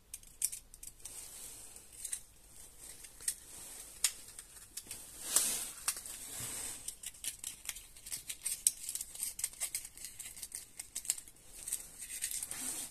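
A thin clear piece of plastic bottle crinkling and crackling in the hands as it is rolled into a sleeve, with many small irregular clicks and a louder rustle about five seconds in.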